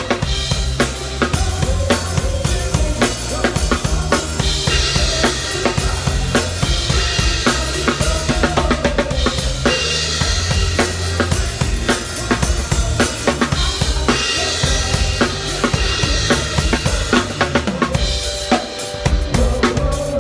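Drum kit played along with a recorded song: steady kick and snare beat with cymbal hits over the backing music.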